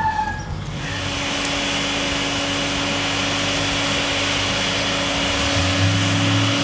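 Forge running to heat the seax steel for annealing: a steady rush of air with a steady hum, starting about a second in.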